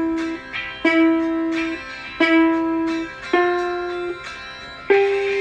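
A slow melody of single plucked string notes, ukulele or guitar, a new note about every second, each ringing until the next; a higher, brighter note comes near the end.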